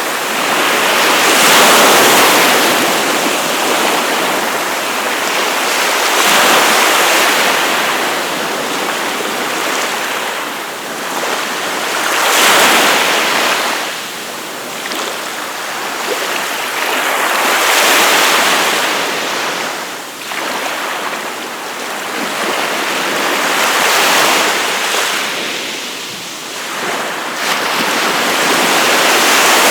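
Gulf of Mexico surf breaking and washing up on the beach, swelling about every five to six seconds over a steady hiss.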